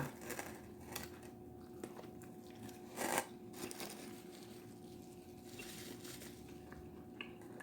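Quiet biting and chewing of food close to the microphone, with one louder crunch about three seconds in, over a faint steady hum.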